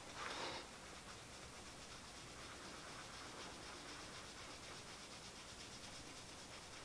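Faint soft brushing of a powder blush brush against the cheek, over low room hiss, with a short louder scuff right at the start.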